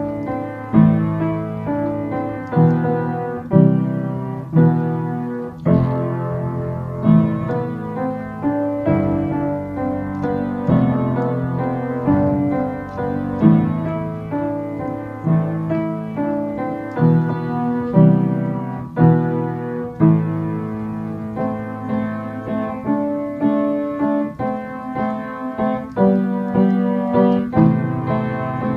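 Solo piano playing an amateur's self-composed tune: low chords struck about once a second with higher notes above them.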